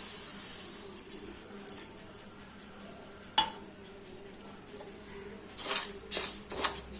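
Dry moong dal being poured into a hot pan, a rattling hiss for the first couple of seconds. Then a single clink about three and a half seconds in, and near the end a spatula scraping and knocking on the pan as the dal is stirred for dry-roasting.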